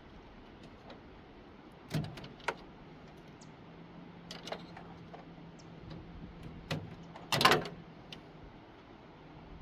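Small scattered clicks and rustles of hands handling a length of electrical wire, with one louder rustling scrape about three quarters of the way through. A faint steady low hum sits underneath.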